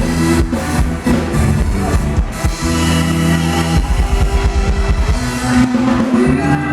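Band music for a Thai ramwong dance, with a steady drum beat under sustained instrument tones.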